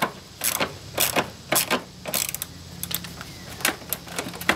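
Ratchet wrench with a 13 mm socket clicking in short, slightly irregular strokes, about two a second, as it loosens the battery hold-down bolt.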